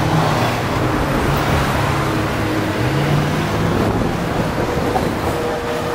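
Street traffic with a Hong Kong double-decker tram rolling past close by, over a steady rush of road noise and a low engine hum that rises and falls.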